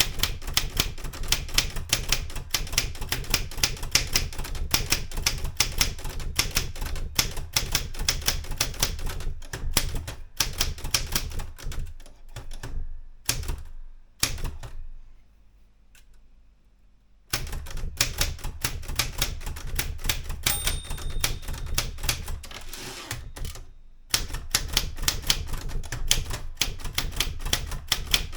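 Erika 105 manual portable typewriter being typed on at speed: a fast run of sharp keystrokes that stops for a few seconds about halfway through, then carries on.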